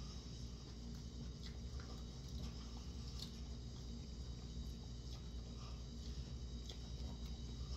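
Quiet eating sounds: chewing, with a few faint clicks of forks against a glass bowl, over a steady low hum.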